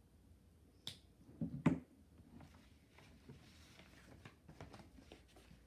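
Marker-and-paper sounds at a table: a few sharp clicks and taps about a second in, the loudest just before the two-second mark, then faint ticking and scratching of a marker tip on paper.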